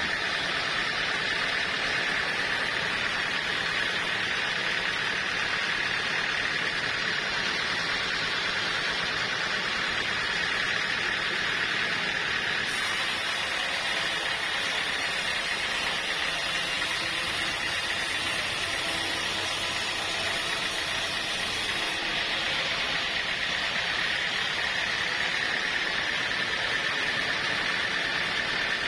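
Sawmill saw running steadily, a constant mechanical whirring with a high whine; its tone shifts, gaining a hiss, from about 13 to 22 seconds in.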